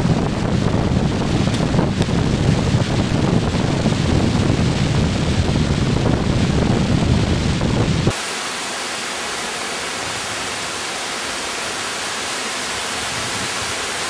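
Wind buffeting the camera microphone, a loud low rumble, until about eight seconds in, when it cuts off abruptly and leaves a steady, even hiss.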